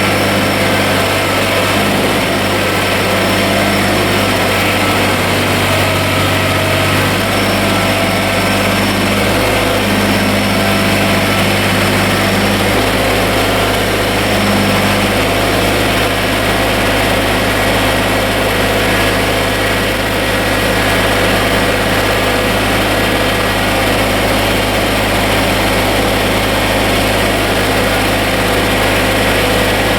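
Kubota BX24 compact tractor's three-cylinder diesel engine running steadily at idle.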